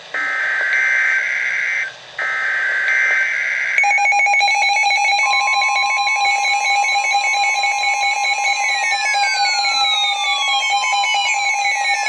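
Emergency Alert System (SAME) header data bursts: harsh, buzzy digital screeches of about two seconds each, twice with a short gap, marking the start of a new weather alert. About four seconds in they give way to a loud, steady alert tone, with a second tone joining about a second later.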